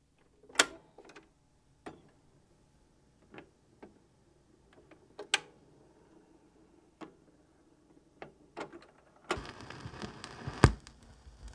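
Turntable starting a 45 rpm vinyl single: scattered mechanical clicks and knocks, the loudest two near the start and about five seconds in. About nine seconds in, the stylus drops into the lead-in groove and a steady hiss of surface noise with crackle begins, with one loud pop a little after.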